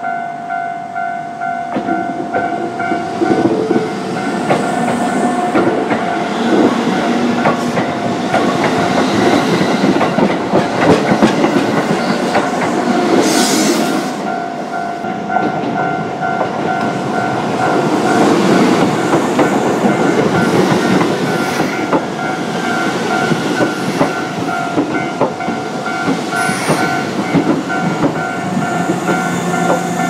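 Japanese level-crossing warning bell ringing steadily while Keisei Line commuter trains run over the crossing, their wheels clattering over the rail joints.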